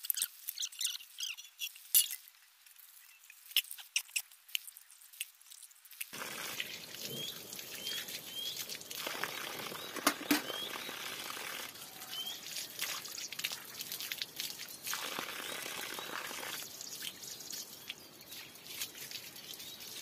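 Steel dishes clinking and clattering as they are washed by hand. From about six seconds in, a steady splash of water from a hose pipe running onto the dishes and wet ground, with a few louder knocks of metal.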